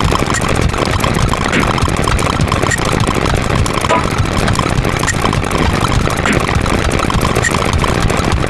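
A dense, unbroken din of many sound effects layered over one another, with rapid clicks running throughout and a steady rumble underneath.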